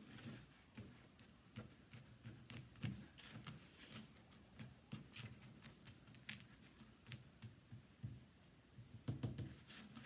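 Faint, irregular taps and scrapes of a spoon spooning birdseed mixture into a small container and packing it down, with a cluster of louder knocks near the end.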